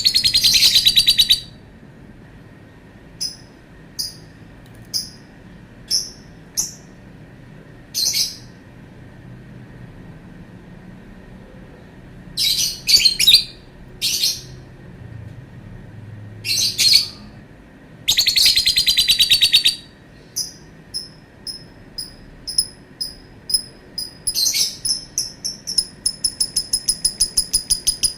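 Lovebird calling: long, rattling, high-pitched trills lasting over a second, short shrill chirps in between, and near the end a fast, even run of chirps.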